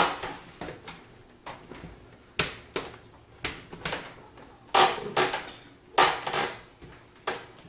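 Steel side panel of a Fractal Design Define R4 PC case being pushed and slid into place by hand: about a dozen irregular knocks and clicks as it meets a little resistance, the loudest two about five and six seconds in.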